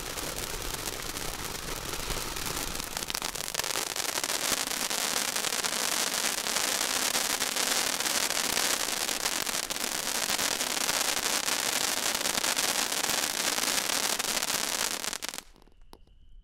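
Ground fountain firework spraying sparks with a steady hiss thick with crackling, growing louder a few seconds in, then cutting off abruptly about a second before the end as the fountain burns out.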